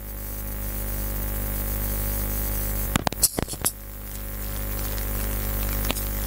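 Steady electrical mains hum and buzz, with a short burst of crackling clicks about three seconds in and a single click near the end.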